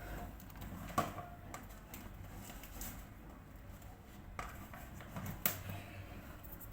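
A few faint knocks and clicks of kitchen containers and utensils being handled, over low room noise.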